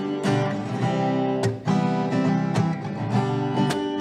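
Acoustic guitar strumming chords, playing the introduction to a song.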